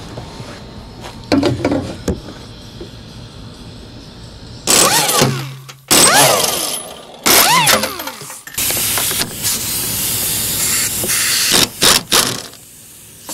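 Compact pneumatic wrench on an air hose, run in several short bursts as it spins out bolts. Its air motor whines up and down in pitch, with a hiss of air; the longest run lasts about three seconds.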